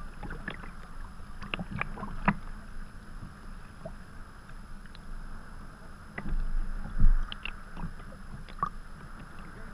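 Sea kayak being paddled: paddle blades dipping and splashing and water slapping against the hull in irregular short splashes over a steady wash. A louder low thud comes about seven seconds in.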